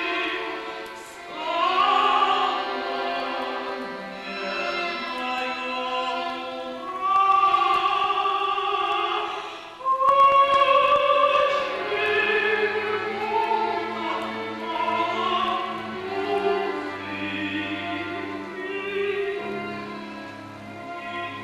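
Mezzo-soprano singing slow, long-held phrases with a chamber orchestra. Low sustained string notes come in about halfway through.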